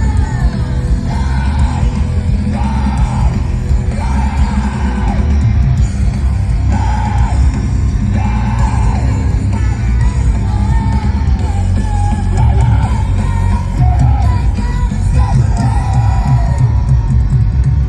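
Live rock band playing loud, with a vocalist alternating between singing and yelling over heavy guitars and drums.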